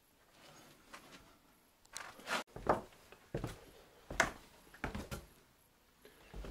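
Footsteps: a run of uneven steps starting about two seconds in, roughly one every half to three-quarters of a second.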